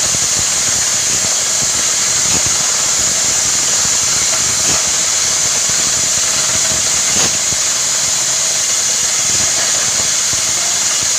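Borewell drilling rig with its air compressor running: a steady loud rush of compressed air over an engine drone, with an occasional faint knock.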